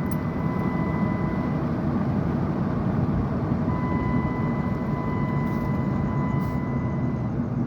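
Dodge Durango's 5.7 Hemi V8 and road noise heard from inside the cabin while driving, a steady low rumble. The engine is running on freshly replaced spark plugs, without the tick-tick misfire it used to make.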